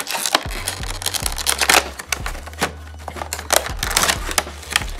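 Box contents and packaging being handled during an unboxing: a quick run of rustles, clicks and light taps, over background music with a low steady bass.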